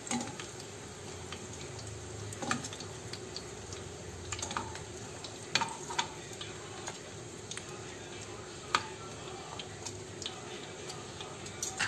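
Hot cooking oil sizzling steadily in a frying pan, with a few light clicks of kitchen utensils now and then.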